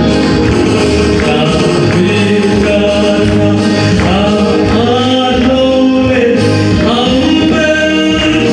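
A man singing a gospel song into a handheld microphone over instrumental accompaniment, with long held, gliding notes over a steady bass line.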